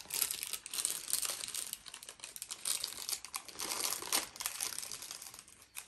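Plastic sleeve of saltine crackers crinkling as it is handled and twisted shut, with irregular crackles that thin out near the end.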